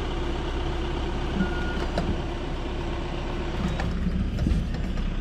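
Steady hum of a car engine running in an underground car park, with a short electronic beep from the parking pay machine about a second and a half in as the ticket goes in.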